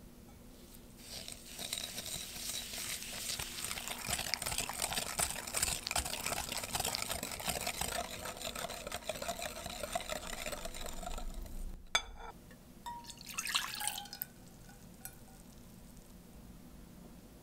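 Wire whisk beating egg yolks and sugar in a glass bowl: rapid, scratchy whisking from about a second in until nearly twelve seconds. After a click, milk is briefly poured into a saucepan, splashing for about a second.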